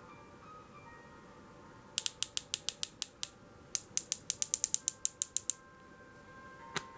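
Riflescope turret being turned, clicking through its detents in two quick runs of about seven clicks a second, then a single click near the end.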